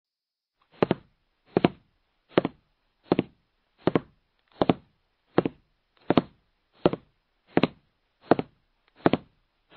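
A steady, evenly timed beat of knocks, about four every three seconds, each a quick double knock.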